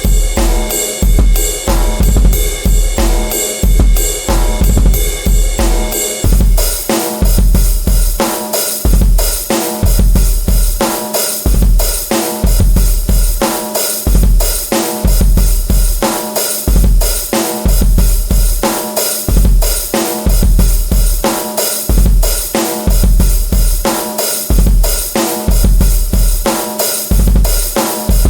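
Drum-kit beat played as an audio test track: a deep bass drum thumping on a steady beat, with snare and cymbals over it. About six seconds in, a layer of high held tones drops out and the drums carry on alone.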